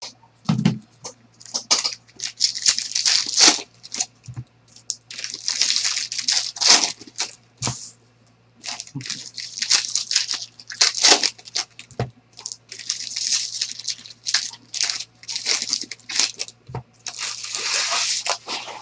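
Foil wrappers of baseball card packs crinkling in irregular bursts as the packs are handled and stacked, with a few soft knocks as packs are set down on the table.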